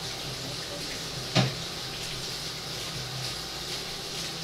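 Tap water running steadily into a kitchen sink as something is washed, with one sharp knock about a second and a half in.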